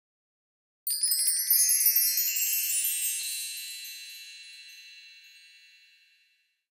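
Chimes sound effect: a quick cascade of bright tinkling chimes starting about a second in, then ringing on and slowly fading out over about five seconds.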